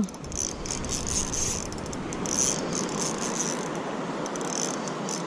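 Ryobi Smurf 800 spinning reel being cranked steadily, its gears whirring and ticking as line is reeled in with a fish on.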